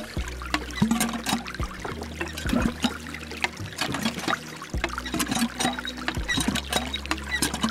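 Thin stream of water trickling and splashing into a small shallow pond from the hose of a miniature hand pump.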